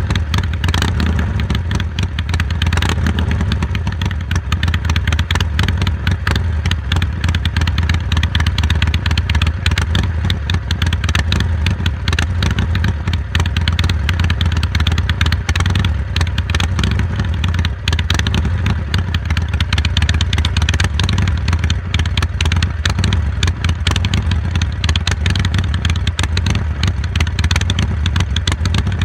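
Harley-Davidson Iron 883's air-cooled V-twin running steadily through a Jekill & Hyde valve-controlled exhaust. It gives a loud, even, low-pitched engine note with no clear revving.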